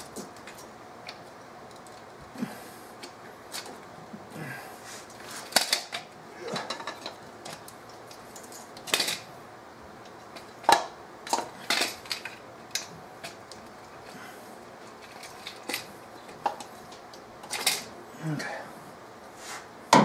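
Irregular clicks and knocks of spark plug wire boots being pulled off and pushed onto the terminals of a distributor cap.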